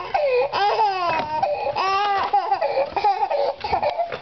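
A toddler crying in a string of high-pitched wails, each one bending up and down in pitch.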